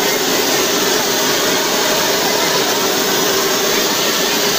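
Military aircraft's engine running steadily: a loud, even rush of noise with a constant whine underneath.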